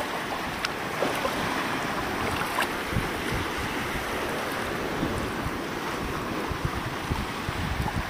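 Calm sea washing over shallow rocks and stones at the water's edge, a steady wash with small scattered splashes and ticks. Wind buffets the microphone in low rumbles.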